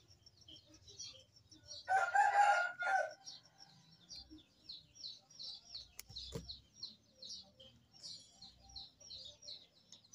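A rooster crows once, a call of about a second starting about two seconds in, over a steady run of short high bird chirps, about three a second.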